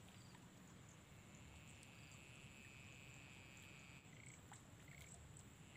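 Near silence: faint outdoor background with a thin high steady whine that fades in and out, and two or three short faint chirps.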